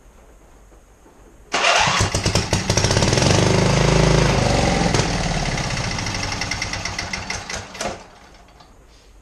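A 27 HP Briggs & Stratton V-twin with a hole in its block, running on one cylinder, starts about a second and a half in and runs for about six seconds, then fades and stops abruptly near the end. It dies for lack of fuel: the vacuum line that lets it pick up gas was off.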